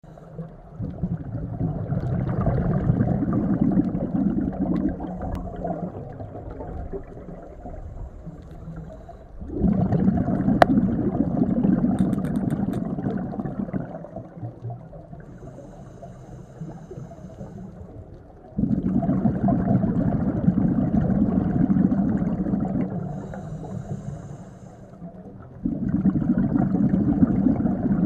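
Scuba diver breathing through a regulator underwater: four long rushes of exhaled bubbles, several seconds each, in a slow regular cycle, with quieter inhalations between them carrying a faint high hiss.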